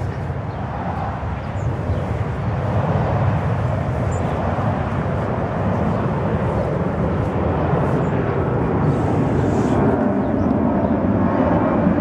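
Steady low outdoor rumble that grows a little louder toward the end, where a faint hum comes in.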